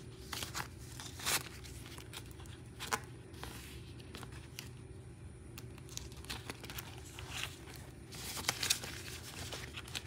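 Paper banknotes and a clear plastic zipper pouch crinkling and rustling as cash is handled and slipped into a budget-binder envelope. Scattered sharp crackles, with a denser run of them near the end.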